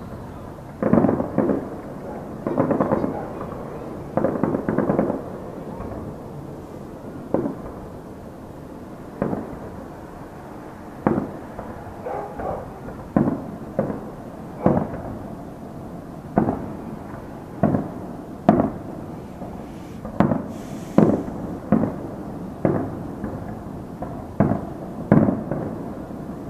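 Distant fireworks display. A cluster of rapid crackling bursts comes in the first few seconds, then single bangs about every second or so, each followed by an echo that dies away.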